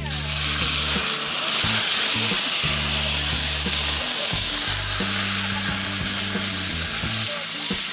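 A block of beef searing in a hot black iron frying pan on a gas camp stove, with a loud, steady sizzle of fat and juices.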